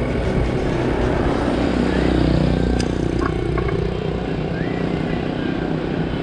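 Motorcycle ridden along a paved road, its engine running steadily under even road and wind noise.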